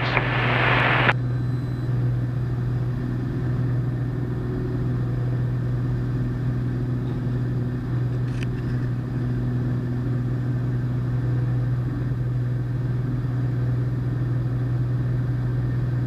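Cessna 210 Centurion's engine and propeller droning steadily in the climb.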